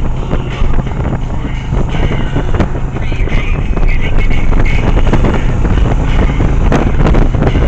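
Yamaha 1100 motorcycle running at speed, its engine rumble mixed with heavy wind buffeting on the microphone.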